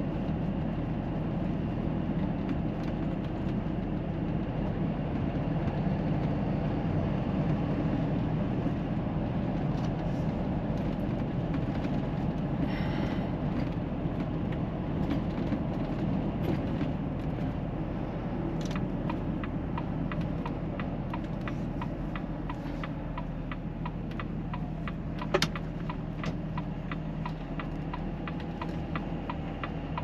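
Volvo FH540 truck running on the road, heard from inside the cab: a steady engine drone with road noise. About two-thirds of the way through, a regular light ticking joins in, and there is one sharp click near the end.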